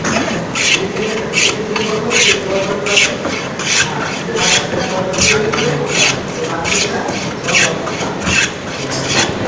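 Hand plane shaving a board in quick, even strokes, about two and a half a second, each stroke a short rasp of the blade cutting wood.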